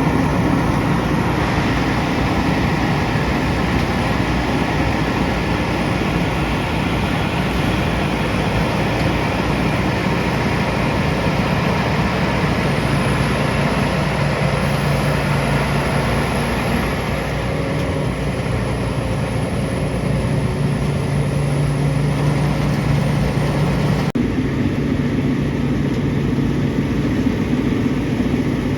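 A heavy engine running steadily, with an abrupt change in the sound about 24 seconds in.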